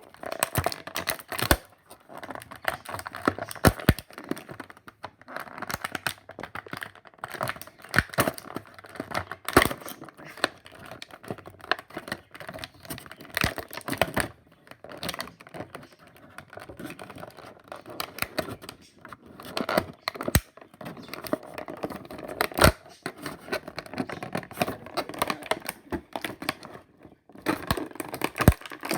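Action figure packaging being handled and torn open: irregular crinkling, tearing and sharp plastic clicks throughout.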